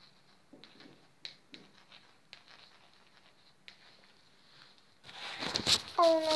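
Handling noise from a phone held in the hand: faint scattered taps and clicks. About five seconds in, loud rustling and knocks as the phone is moved and set down.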